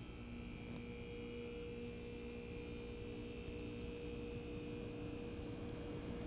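American Standard Platinum 20 SEER heat pump starting up: a faint, steady hum with a clear mid-pitched tone. It grows slightly louder and more hissy near the end.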